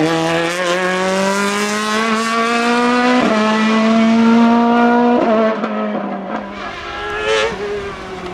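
A rally car's engine accelerating hard past and up the road, its pitch climbing. There are sudden pitch shifts about three and five seconds in, at gear changes. The engine then fades as the car draws away.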